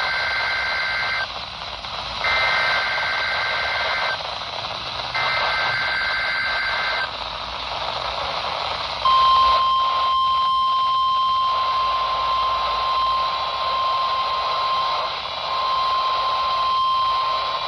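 NOAA Weather Radio tornado-drill alert from transmitter WXJ20 over a hissy receiver: three buzzy bursts of SAME digital header data, the first already under way. About halfway in, the steady 1050 Hz NWR warning alarm tone starts.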